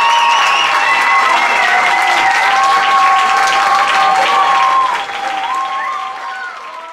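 Audience applauding and cheering, with long, high, held calls over the clapping. It fades out over the last two seconds.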